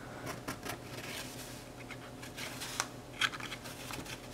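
Folded printer paper rustling and scraping against a drink coaster as a paper scooper is pushed under it, with a few scattered short scrapes and taps.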